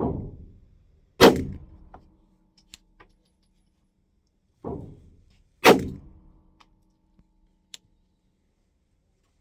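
9mm Glock 45 pistol firing 115 grain RUAG ball: four shots in two pairs. Each pair is a duller report followed about a second later by a sharper, louder crack, with faint short ticks between them.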